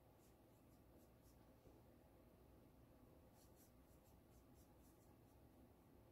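Faint short strokes of a paintbrush laying acrylic paint onto a hardboard panel, several quick strokes a second in two runs: one in the first second or so and another from about three and a half seconds in, over near-silent room tone.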